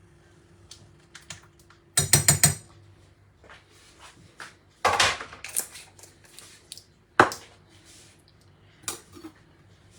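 A cooking pot and kitchen utensils clattering while ingredients are added to a herbal brew: a quick rattle of several strikes about two seconds in, a longer clatter about five seconds in, a sharp knock just after seven seconds and a lighter one near the end.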